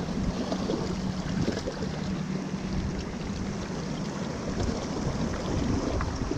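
Wind blowing on the microphone over the steady wash of sea waves, with a faint steady low hum underneath.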